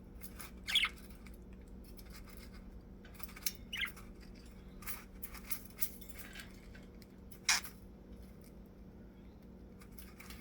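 Budgie scratching and picking at the cage floor, making small scattered clicks and scrapes. Three short chirps come about a second in, near four seconds and past seven seconds.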